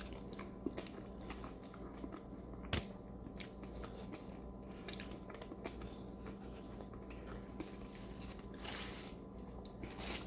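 A person chewing a burger close to the microphone, with many small wet mouth clicks and one sharper click about three seconds in.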